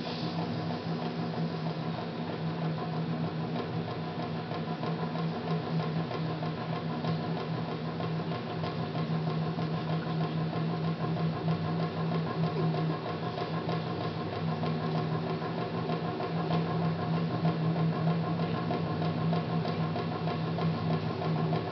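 Ensemble of Japanese taiko drums, barrel-bodied nagado-daiko and rope-laced drums, beaten with sticks in a fast, continuous, even roll. The deep drum tone stays steady without a break, and the recording is poor.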